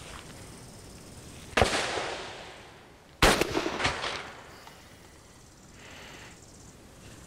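Two shotgun shots about a second and a half apart, one from each barrel of a double-barrelled shotgun firing buckshot loads, the second the louder. Each shot is followed by a long fading echo.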